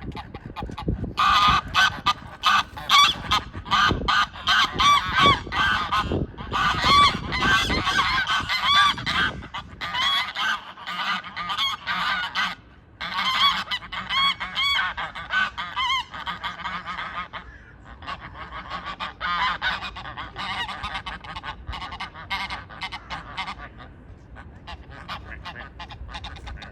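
A flock of ducks and other fowl calling over one another, many overlapping calls at once. The calling is densest through the first ten seconds, pauses briefly, picks up again, then thins to softer, scattered calls near the end.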